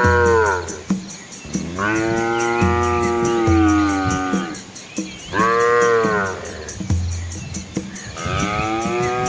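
Cows mooing: four long, loud moos. The second moo is the longest, about two and a half seconds, and the last begins near the end.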